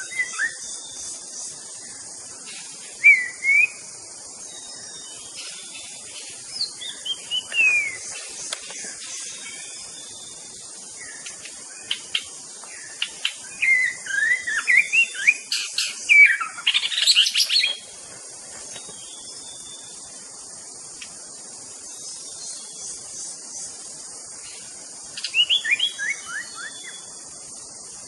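White-rumped shama (murai batu) singing in separate bursts of quick whistled, gliding phrases, the loudest and fullest run a little past the middle. A steady high hiss runs underneath.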